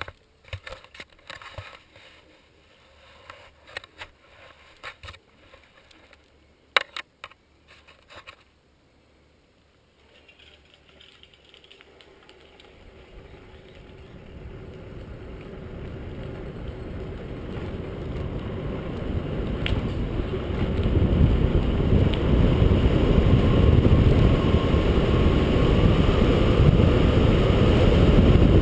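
Scattered clicks and knocks for the first several seconds, then wind and road rush over the microphone of a camera on a moving bicycle, swelling steadily for about ten seconds as the bike gathers speed and then staying loud.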